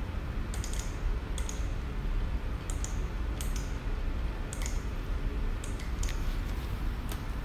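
Computer mouse clicks and keyboard keystrokes, about ten short sharp clicks at irregular intervals, over a low steady hum.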